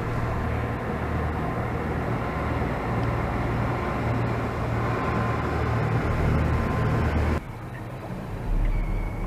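An engine running steadily under way, with a steady low hum and a rushing noise over it. The sound changes abruptly about seven and a half seconds in.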